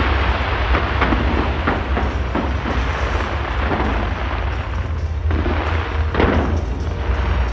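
Fireworks bursting in quick succession, a dense string of booms and sharp cracks over a continuous deep rumble, with heavier bursts a little past the middle.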